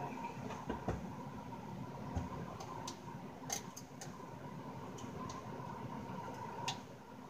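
A scattering of small, sharp clicks and taps as the control knobs are worked off a Yamaha THR10 amp's top panel by hand, over a steady hum in the background.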